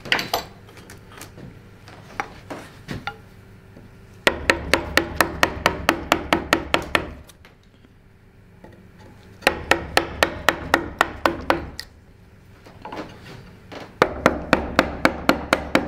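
Hornbeam wood-carver's mallet striking a large carving chisel into a block of timber, in three quick runs of about five blows a second with short pauses between, and a few lighter taps before the first run.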